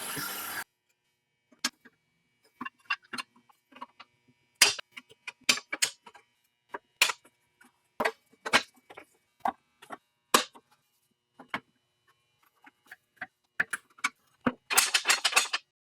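Irregular sharp clicks and knocks, a dozen or more spread unevenly, some louder than others. A short hiss comes at the very start and another lasts under a second near the end.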